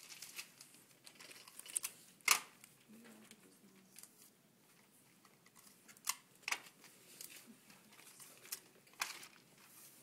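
Paper pattern pieces rustling and crinkling as they are spread and smoothed on a table, with clear tape being handled. There are a few sharp crackles, the loudest about two seconds in.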